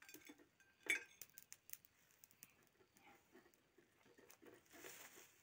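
Faint clinks and taps of a fork against a plate, with one sharper clink about a second in.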